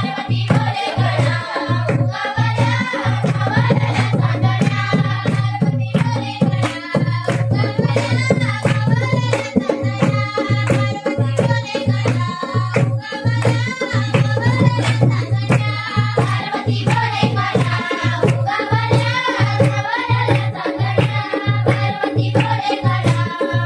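Konkan folk song: a voice singing a winding melody over a fast, steady hand-drum rhythm.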